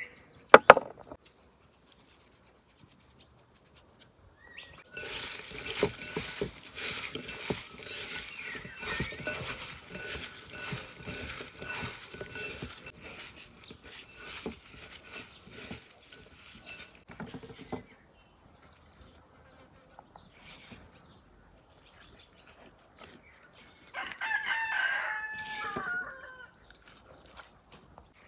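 A bird calling for about two seconds near the end, after a long stretch of rapid clicking and knocking.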